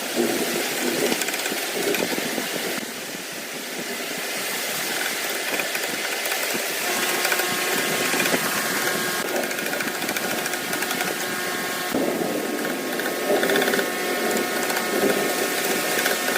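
A woodworking power tool running with a steady noisy whir; a higher, steadier motor whine comes in about halfway through.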